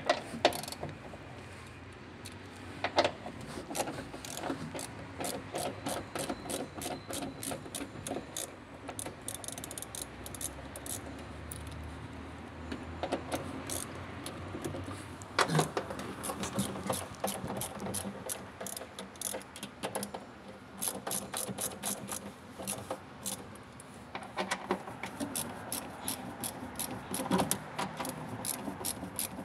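Ratchet socket wrench clicking in quick runs as it unscrews the transit (shipping) bolts from the back of a new washing machine, with a few louder metal knocks.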